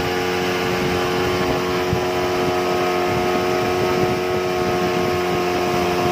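Boat's outboard motor running at a steady speed, a constant hum over the rush of water and wind as the boat travels.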